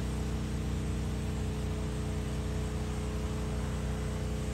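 DJI Agras T30 six-rotor crop-spraying drone flying, its rotors a steady, unchanging hum of several pitches over a hiss of rushing air.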